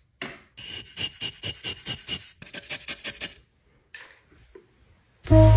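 A stick of drawing charcoal rasped back and forth on a sandpaper sharpening paddle in quick strokes, about five a second, grinding it into black powder. A few faint scrapes follow, and music starts near the end.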